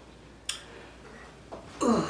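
A single sharp click about half a second in, then near the end a short, loud burp that falls in pitch, from a woman drinking carbonated Coke Zero.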